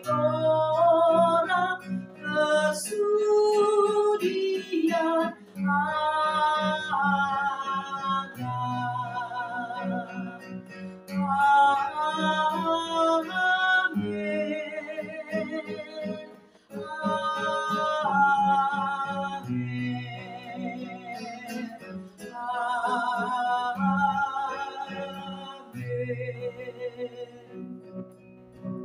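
A woman singing a slow song with strong vibrato, accompanying herself on a strummed classical guitar. The phrases are separated by short breaths, and the song winds down near the end.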